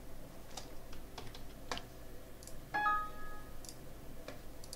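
Scattered computer keyboard and mouse clicks, with a short Windows XP system chime about three seconds in, the loudest sound, fading away within about a second.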